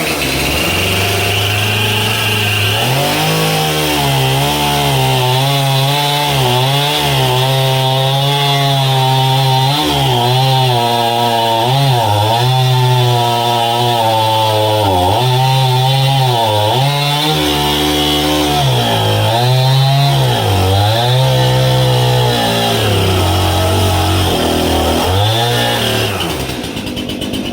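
Chainsaw bucking a large black cherry log in half. The engine runs loud under load, its speed repeatedly dipping and recovering through the cut, and it winds down near the end.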